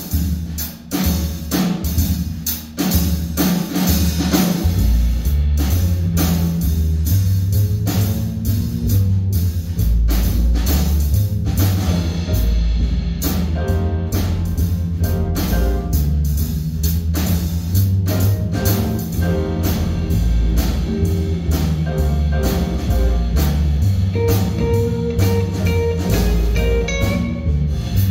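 Small live jazz combo playing: drum kit keeping time, an upright bass line coming in about four seconds in, and piano notes joining later on.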